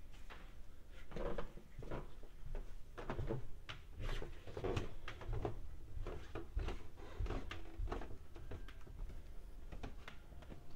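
Footsteps going down carpeted stairs, a dull thud about every two-thirds of a second.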